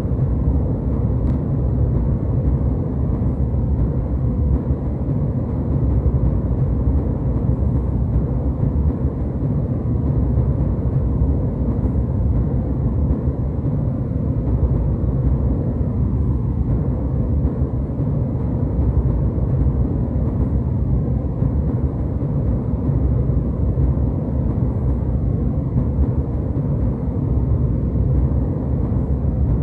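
Steady jet airliner cabin noise: a deep, even engine and airflow rumble with a soft hiss above it, unchanging throughout.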